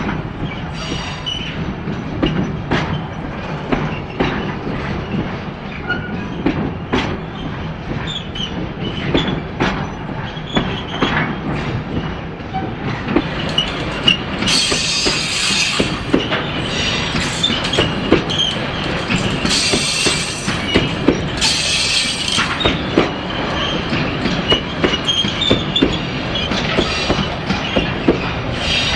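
Container freight train's flat wagons rolling past close by: a steady low rumble with repeated clicks of wheels running over rail joints. About halfway through come three short bursts of high-pitched wheel squeal.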